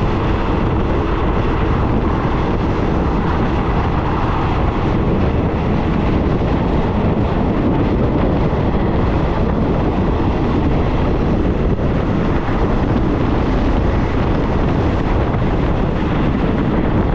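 Steady rush of air buffeting the microphone out of the open window of a moving passenger train, over the train's running noise on the rails.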